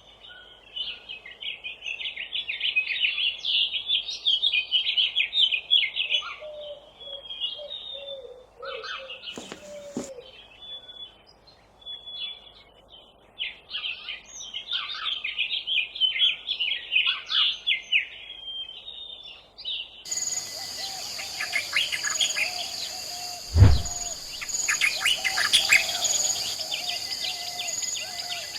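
Songbirds chirping and twittering busily, a bird-ambience sound effect. About twenty seconds in the recording changes to a second bird ambience with a steady high-pitched drone under the chirps, and a single low thump follows a few seconds later.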